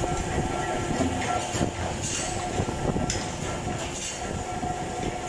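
Hydraulic deep-drawing press running in a metal workshop: a steady mechanical hum with a few held tones, a short hiss about once a second, and light metal clatter.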